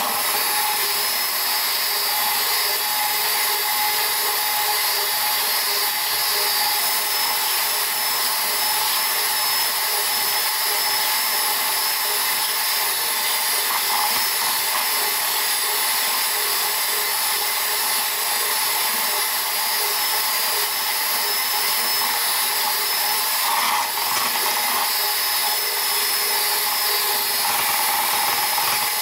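Electric hand mixer running steadily at an even speed, its beaters whipping cake batter in a plastic jug.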